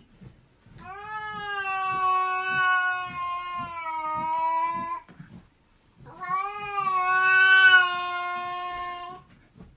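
Silver-and-white shorthair cat giving two long, drawn-out yowls, each a few seconds long with a short break between, the second louder. It is a warning call in a standoff with another cat.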